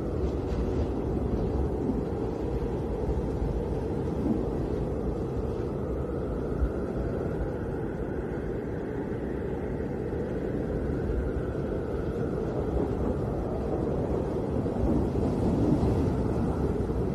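Snowstorm wind blowing in a steady deep rush, with a faint whistling tone above it that slowly rises and falls.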